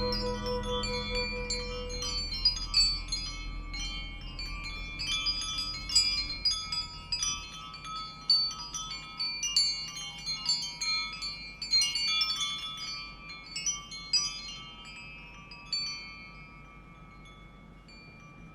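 The fading outro of a Thai love song: a held low note dies away within the first few seconds, leaving wind chimes tinkling in scattered strikes that thin out and fade toward the end.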